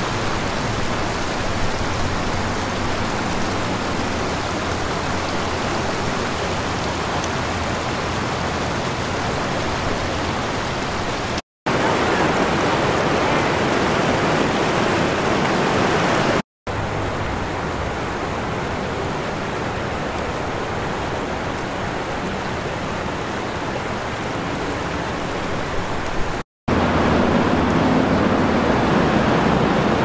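Fast river water rushing over rapids and a low weir: a steady, even hiss, broken by three brief dropouts where clips are joined.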